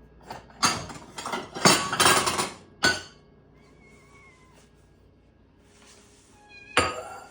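Ragdoll cat meowing for treats: a run of loud, rough meows in the first three seconds, then a quieter stretch and another meow near the end.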